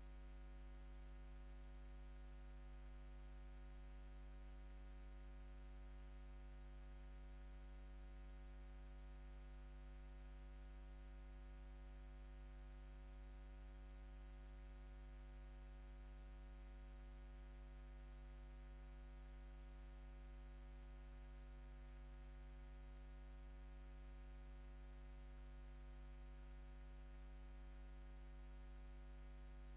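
Near silence: a faint, steady electrical hum that does not change.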